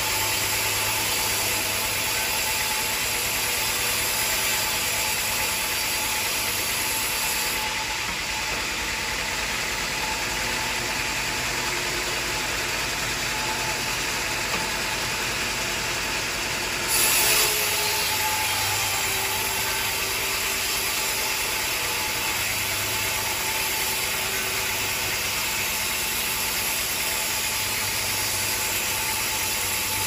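Sawmill band saw cutting teak timber: a steady mechanical running noise of the blade feeding through the wood, with a short louder stretch about 17 seconds in.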